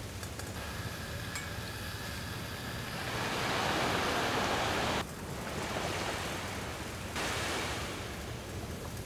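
Steady rushing of surf and wind on a beach, swelling for a couple of seconds midway and changing abruptly twice, about five and seven seconds in.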